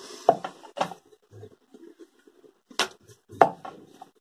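Wooden rolling pin rolling out a large thin round of maida dough on a wooden rolling board: soft rubbing with four sharp knocks of wood on wood as the pin and board clack together.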